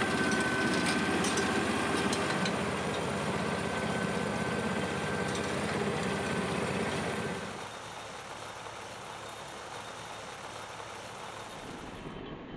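Tilmor 520 tractor's engine running steadily, with a high whine above the engine note. About seven and a half seconds in it drops to a quieter steady running sound.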